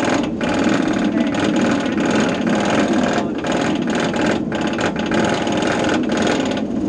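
Inverted roller coaster train being pulled up the chain lift hill: a loud, continuous mechanical clatter and rattle from the lift chain and track.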